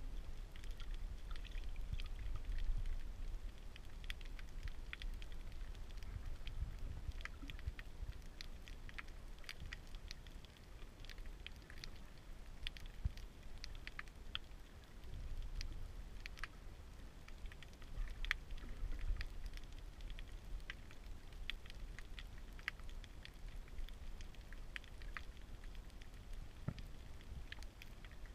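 Underwater ambience picked up by a camera below the surface: a low, steady rumble of moving water with irregular, sharp crackling clicks scattered throughout, several a second.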